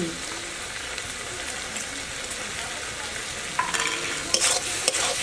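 Ol data (elephant-foot-yam stems) frying in an aluminium karahi with a steady sizzle. From about three and a half seconds in, a metal spatula scrapes and knocks against the pan as it is stirred.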